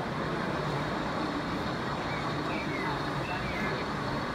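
Steady background hubbub of a crowded exhibition hall, with faint distant chatter.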